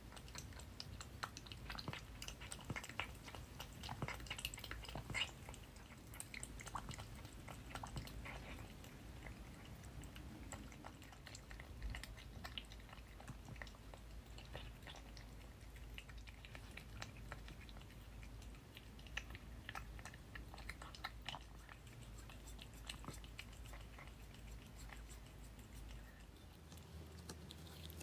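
A small pet chewing: faint, irregular crunching clicks, busier in the first few seconds, over a low steady hum.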